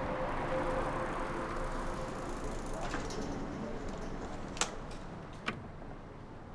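Street ambience with a steady hum of distant traffic, under a held music tone that fades out in the first couple of seconds. Then come two sharp metallic clicks about a second apart as a bicycle is set into a metal bike rack.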